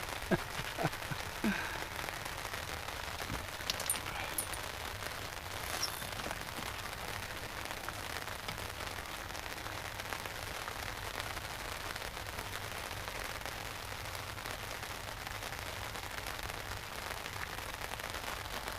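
Steady rain falling on the lake and boat: a constant even hiss, with a few light knocks in the first few seconds.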